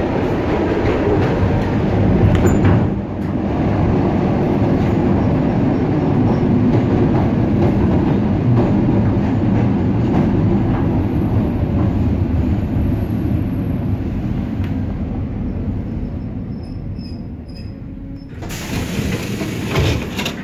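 Suburban electric train heard from its vestibule, its wheels rumbling and clattering as it slows into a station, the noise easing toward the stop. A sudden loud rush of noise comes near the end.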